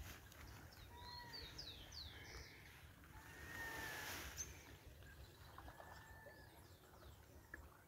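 Faint birdsong from several birds: short whistled notes and quick sweeping chirps over quiet open-water ambience. About four seconds in, a soft splashing hiss swells and fades as a kayak paddle dips into the water.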